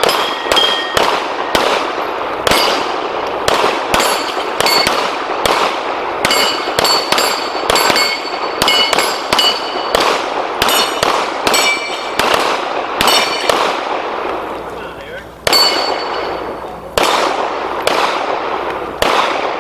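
Rapid pistol fire from two shooters, about two shots a second, with steel plate targets ringing as they are hit. The shooting slackens briefly about fourteen seconds in, then a few more shots and rings follow.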